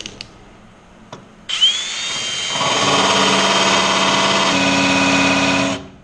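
Cordless drill running through a 90-degree right-angle drill attachment: after a few small clicks it spins up with a rising whine about a second and a half in, runs steadily for about four seconds with its tone changing partway, then stops. The bit is super dull and isn't cutting.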